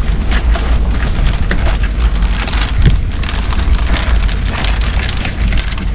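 Rustling and crinkling of a swag bag being opened and its contents handled, a rapid run of small crackles over a steady low rumble.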